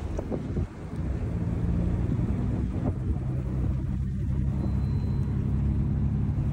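Steady low engine and road rumble of a moving vehicle, heard from inside the cabin.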